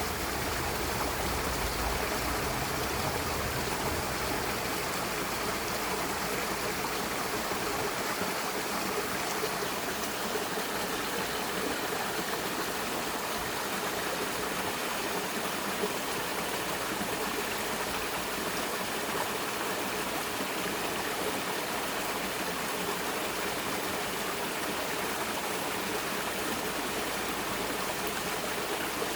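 Mountain valley stream rushing steadily over rocks, with a low rumble in the first few seconds.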